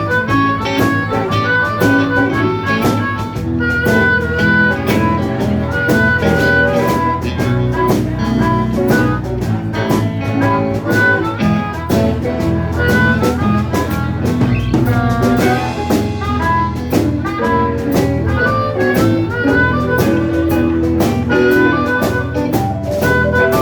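Live band playing an instrumental blues passage, with a drum kit keeping a steady beat, bass underneath and a lead melody line on top.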